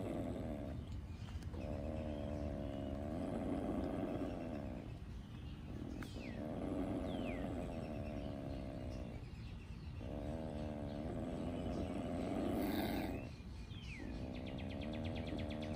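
Virginia opossum growling with its mouth open in a defensive threat display: a run of long, low growls, each several seconds, broken by brief pauses.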